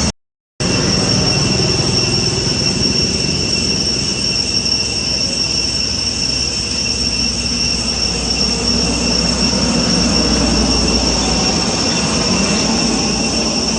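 Steady low rumble with a steady high-pitched drone over it, broken by a brief dropout near the very start.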